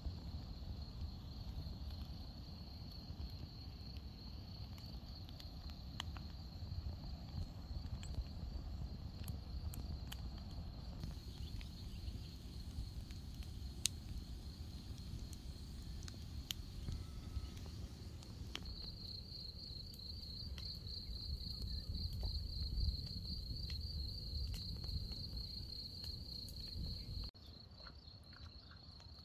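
Insects chirring in a continuous high-pitched trill, louder in the second half, over a low rumble, with scattered sharp clicks.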